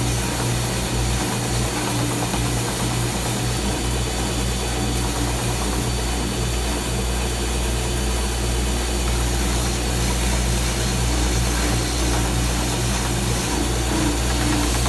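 Stationary sander and shop vacuum running steadily together, with a low hum throughout, while a wooden box body is held against the sander and sanded.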